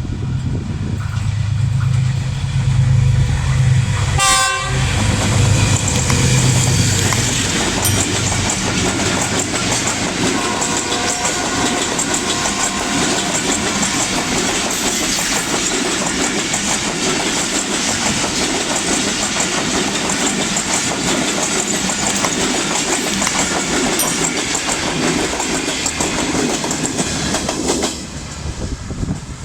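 Jaffar Express passenger train passing close by. A diesel locomotive's low engine drone comes first, with a short horn blast about four seconds in. Then the coaches roll past for over twenty seconds with rhythmic wheel clatter over the rail joints, and the sound drops away sharply near the end as the last coach goes by.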